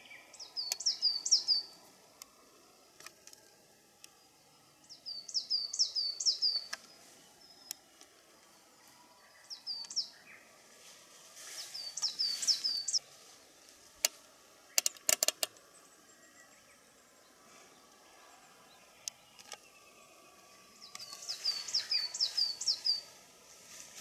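A small songbird sings short phrases of three to five quick, high, hooked notes, repeated five times with pauses of several seconds. A few sharp clicks come about two-thirds of the way through.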